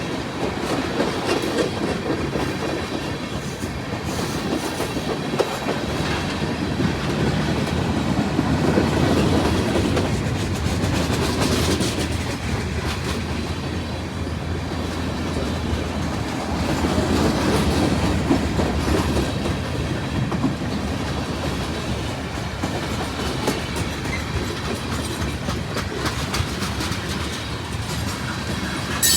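CSX mixed freight train rolling past: a steady rumble of the cars, with wheels clicking over rail joints, swelling and easing a few times.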